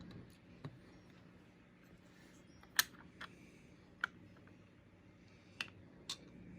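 Small plastic LEGO pieces clicking as they are handled and pressed together: about six short, sharp clicks spread out, the loudest a little under three seconds in.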